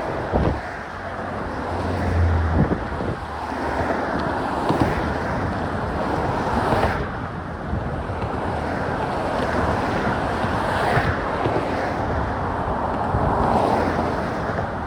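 Strong wind rushing over a phone microphone, a steady noise that swells and eases, with the low hum of traffic on the bridge beneath it.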